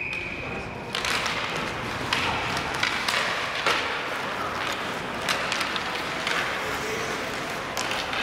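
Hockey game play in a rink: a whistle sounds for about the first second, then sticks and puck knock and clack at scattered moments over a steady background of voices and rink noise.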